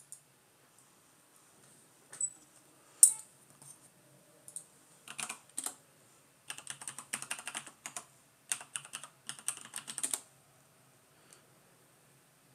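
Computer keyboard typing in quick bursts, a user ID and password being entered, with a few single clicks in the first few seconds.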